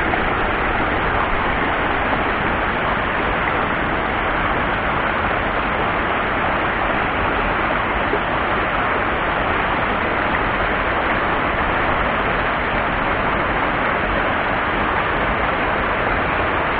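Mountain stream rapids: whitewater rushing over boulders in a steady, unbroken roar of water.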